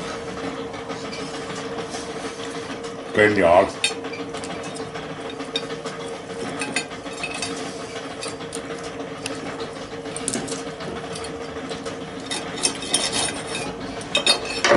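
Knife and fork cutting crisp-skinned grilled pork belly on a plate, with scattered clicks and scrapes of the cutlery that grow busier near the end, over a steady low hum.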